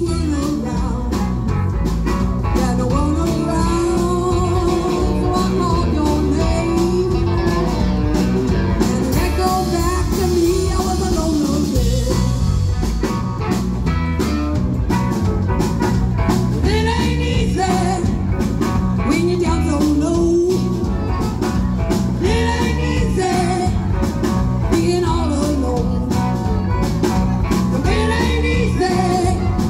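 Live blues band playing: electric bass, electric guitar, drum kit and amplified harmonica, with a woman singing at times.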